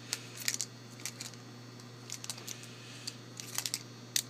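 Light metallic clicks and taps of a Kwikset Signature deadbolt and its keys being handled, scattered irregularly, with a small cluster of clicks about three and a half seconds in.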